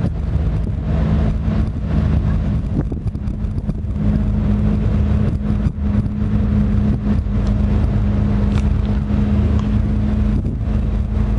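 Steady engine drone, an even low hum, with wind rumbling on the microphone.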